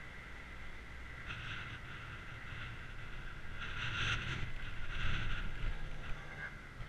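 Wind and road noise from a camera riding on a bicycle over a bumpy asphalt cycle path: a steady rumble and hiss with jolting rattles, louder around the middle.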